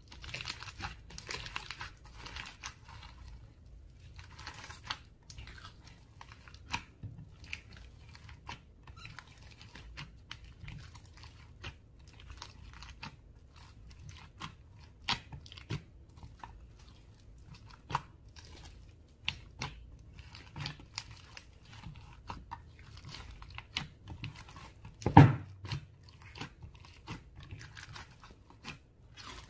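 Hands mixing slime, squishing it with irregular sticky clicks and crackles, and one loud thump near the end.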